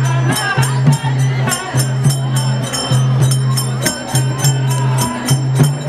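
Tharu folk music: a man singing while he beats a double-headed barrel hand drum, over a quick, even metallic jingling beat.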